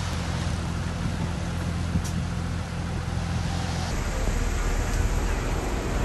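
Heavy diesel engine of earth-moving equipment running steadily. About four seconds in the sound changes abruptly to a lower, rougher engine sound.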